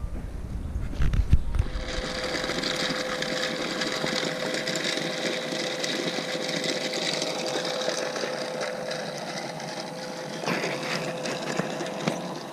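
A Tumble-Bee rotary rock tumbler running: a steady motor hum under a continuous rattle and grind of stones turning in the barrel. It starts about two seconds in, just after a low rumble with a couple of thumps.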